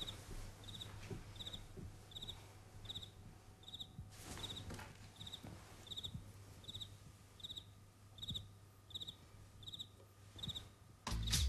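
Cricket chirping steadily, a short pulsed chirp about every three-quarters of a second, with faint rustling. Music starts near the end.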